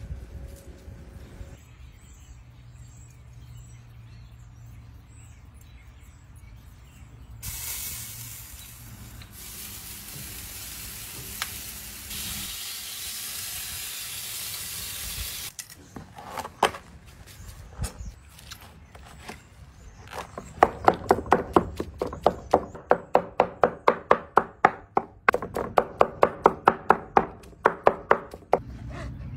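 A knife chopping smoked chicken against the steel top of a flat-top griddle, a rapid run of sharp taps about four to five a second with a brief pause in the middle. Before that, a steady hiss runs for several seconds.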